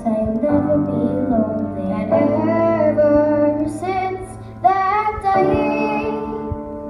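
Two young girls singing a duet into microphones, drawn-out sung notes that bend in pitch, with a short lull a little past four seconds in.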